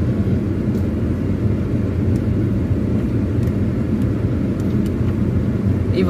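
Steady low rumble of a car's engine and tyres heard inside the cabin while driving slowly along a dirt forest track, with a few faint clicks.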